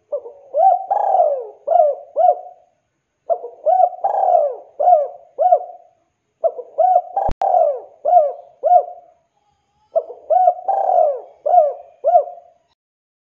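Spotted dove (tekukur) cooing its song four times in a row, each phrase a quick run of hooked, rising-and-falling coos. There is a sharp click about seven seconds in.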